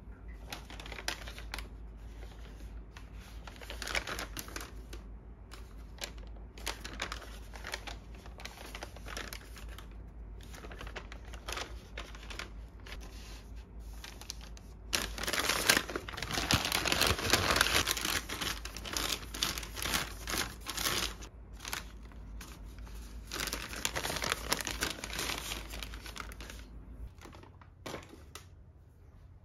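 A kraft paper bag being folded and creased by hand, crinkling and rustling, louder for several seconds about halfway through.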